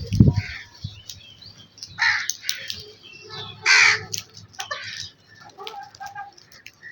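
Crows cawing: a pair of harsh caws about two seconds in and a louder, longer caw near the middle, with fainter bird chirps between. Two low thumps at the very start.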